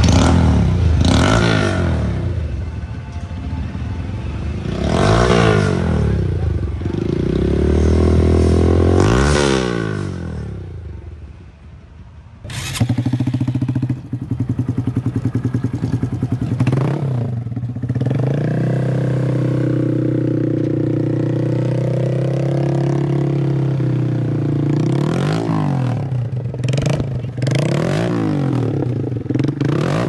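Honda Grom single-cylinder four-stroke engine revved three times through an S&S Cycle exhaust, each rev climbing and falling back. After a brief drop about twelve seconds in, a second Grom idles steadily through a Vance & Hines full exhaust system and is blipped several times, with a quick run of blips near the end.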